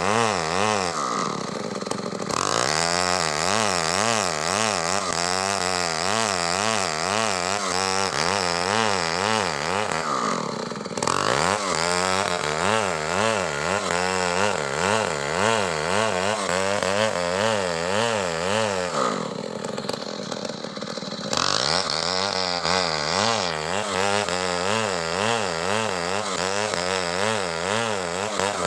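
Stihl two-stroke chainsaw running hard, cutting coconut trunk wood, its engine pitch wavering under load. The saw eases off briefly three times and then comes back to full speed.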